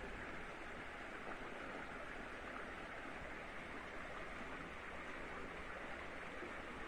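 Shallow stream water running over rocks, a steady rushing noise.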